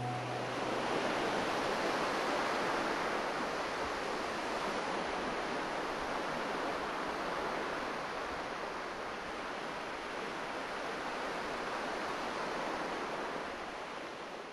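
Steady rushing noise with no music or voices in it. It sinks a little near the end.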